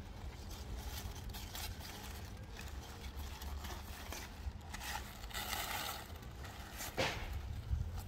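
Knife cutting through crisp lettuce stalks at the base of the heads, with leaves rustling and crunching as they are handled; a sharp snap about seven seconds in is the loudest sound.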